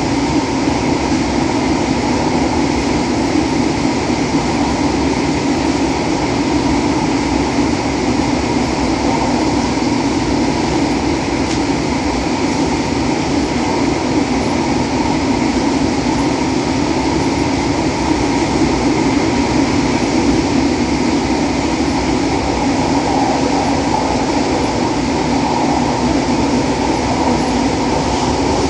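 Steady running noise inside an MTR A-Train electric multiple unit car in motion: a constant rumble of wheels on rail and running gear, with no clear clickety-clack rhythm and no change in pace.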